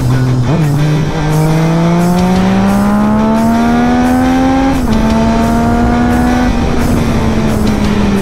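Yamaha XSR900's three-cylinder engine pulling hard under acceleration: its pitch climbs steadily for about four seconds, drops suddenly at an upshift about five seconds in, then holds fairly steady at cruising revs. Background music with a steady beat plays underneath.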